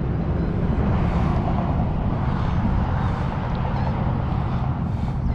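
Steady low rumble of wind buffeting the camera's microphone, with a few faint gusts.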